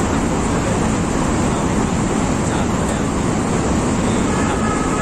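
Steady road and wind noise from a moving vehicle, with a constant low rumble of wind on the microphone.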